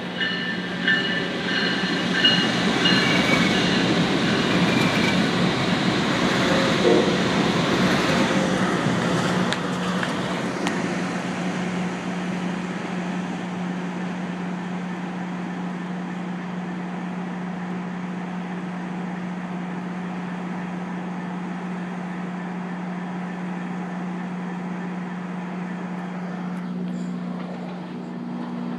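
A train rolling past, its rumble and rail noise loudest in the first ten seconds and then fading, with a repeated high ringing over the first few seconds. A steady low hum continues underneath.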